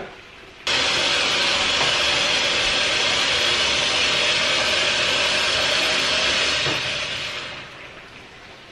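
Kitchen tap running hot water into a jug in a steady hiss. It starts suddenly about a second in and tails off about a second before the end.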